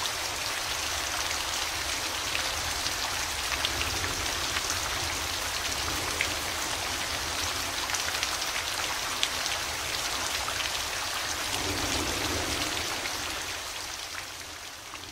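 Steady falling rain, a dense hiss full of small drop ticks, which begins fading out near the end.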